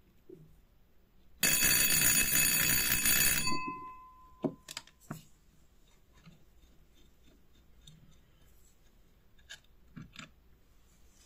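An antique electric trembler doorbell ringing as it is powered from a battery: the hammer buzzes rapidly against the metal gong for about two seconds, then stops suddenly and the gong rings out and fades. A few light clicks and taps from handling follow.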